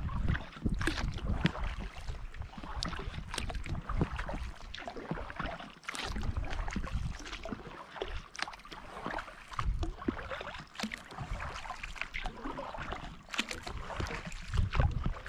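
Kayak paddling: the paddle dipping and water splashing and trickling in many short irregular splashes, with gusts of wind rumbling on the microphone now and then.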